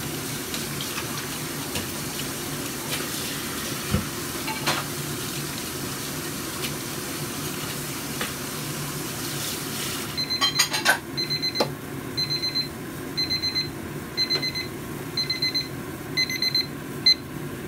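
A pot of soup boils with a steady bubbling on a gas stove. About ten seconds in, a digital kitchen timer reaches zero and its alarm goes off: clusters of quick, high beeps about once a second, with a few clicks as the timer is picked up.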